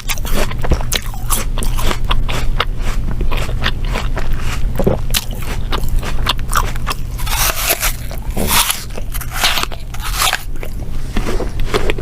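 A person biting and chewing crunchy food close to the microphone: a dense, irregular run of crisp crunches and crackles, over a steady low hum.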